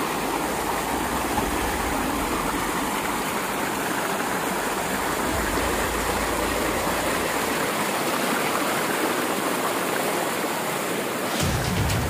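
Steady rush of water from a forest waterfall and the rocky stream below it. Near the end, background music with a beat comes in.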